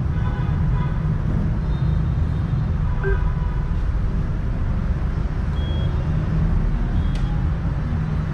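Steady rumble of street traffic. A few short, high single beeps from the ATM keypad sound near the end.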